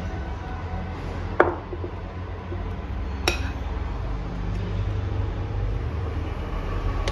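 Metal spoon clinking against a glass mixing bowl twice, sharply, while scooping cake batter, over a steady low hum.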